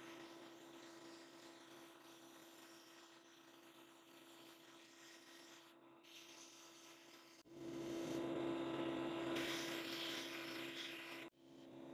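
Abrasive blast cabinet in use: the blast gun hisses steadily over a low hum. The hiss gets louder about seven and a half seconds in and cuts off suddenly for a moment near the end.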